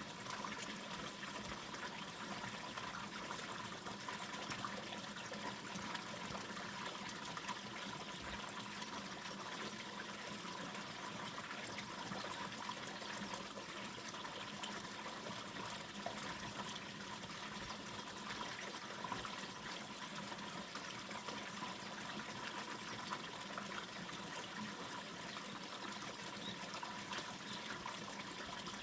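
Water from a fountain running and splashing steadily, without a break.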